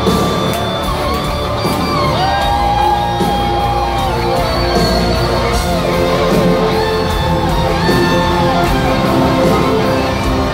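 Live rock band playing loud, heard from the audience in a concert hall. A lead line holds long, sustained notes that bend up and down over drums and rhythm guitar.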